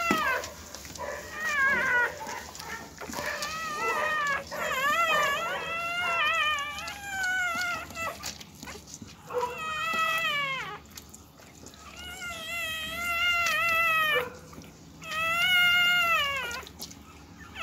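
Newborn Siberian husky puppies crying: a string of high-pitched, meow-like squeals, each a second or two long and wavering up and down in pitch, with short pauses between them.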